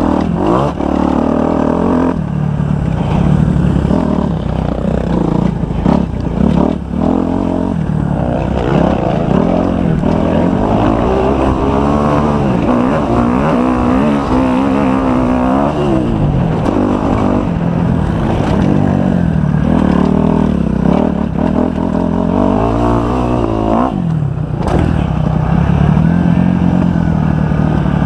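Kawasaki 250 motocross bike's engine revving hard, its pitch repeatedly climbing and dropping as the rider opens and shuts the throttle around a dirt track.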